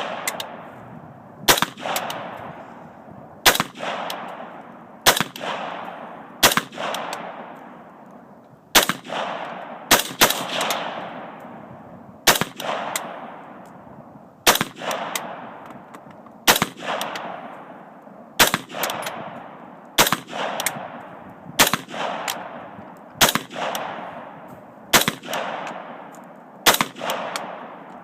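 Colt 6900 AR-15 carbine firing .223 rounds semi-automatically. There are about fifteen shots, one every one to two seconds, and each is followed by an echo that fades over about a second.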